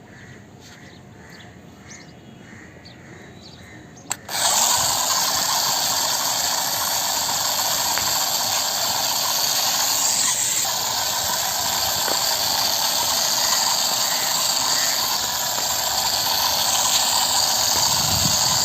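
Small electric motor of a homemade toy backhoe loader, switched on with a click about four seconds in and then whirring steadily and loudly.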